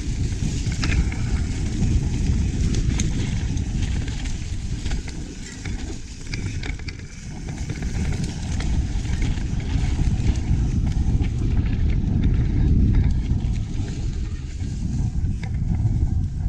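Mountain bike riding on a dirt trail: strong wind buffeting a GoPro's microphone as a steady low rumble, over scattered clicks and rattles from the bike and tyres on the ground. The rumble eases briefly about six seconds in.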